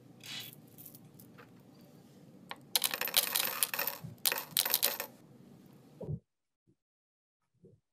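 Small hard candies poured through a paper funnel, clattering into a glass bottle in a dense rattle in two pours, over a low hum. The sound cuts off suddenly about six seconds in.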